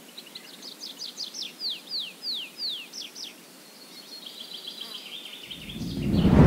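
Songbird singing: a run of quick chirps, then four or five clear falling whistles, followed by a softer, faster trill. A deep rumble swells up near the end and becomes the loudest sound.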